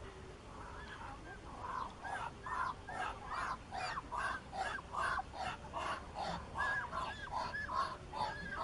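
Muscovy ducks calling: a fast, even series of short rising-and-falling calls, about two or three a second.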